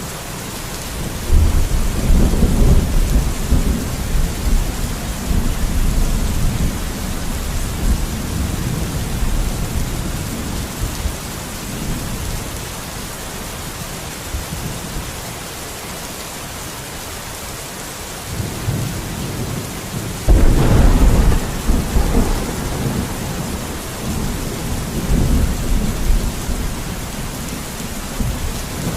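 Steady rain with two rolls of thunder: the first breaks about a second in and rumbles on for around ten seconds, the second starts suddenly about two-thirds of the way through and rolls on almost to the end.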